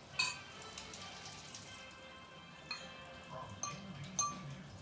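Cutlery clinking against dishes during a meal. One sharp clink with a brief ring comes about a quarter second in, and three more clinks follow in the second half.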